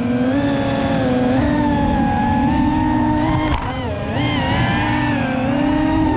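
FPV quadcopter's electric motors and propellers whining, heard from the onboard camera, the pitch of the whine rising and falling as the throttle changes.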